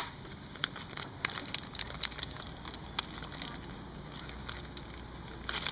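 Scattered light clicks and taps of a tire-plug tool's metal and plastic parts being handled and fitted together, thinning out after a few seconds, over a steady low rumble.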